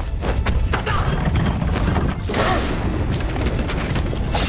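Animated-film action sound effects: a rapid run of knocks, clatters and crashes over a heavy low rumble, with a rushing swell about halfway through.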